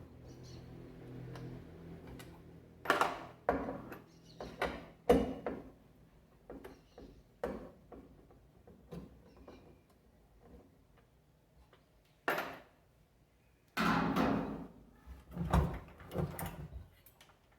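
Irregular knocks and clunks of tools and metal parts being handled while a washing machine's agitation mechanism is dismantled, with a faint low hum in the first couple of seconds.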